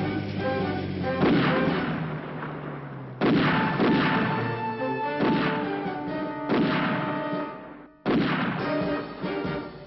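Dramatic film-score music, a string of sudden loud accented chords with percussion hits, about six in all, each dying away before the next.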